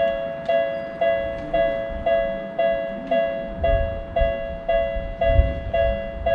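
Japanese railroad crossing alarm ringing its two-tone "kan kan" bell, about two strikes a second. A low rumble joins about halfway through.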